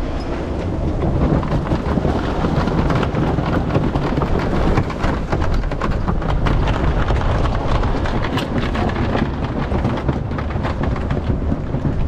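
Strong wind buffeting the microphone aboard a heeled sailboat in rough sea, over the rush of waves and spray along the hull, with many short sharp hits of spray.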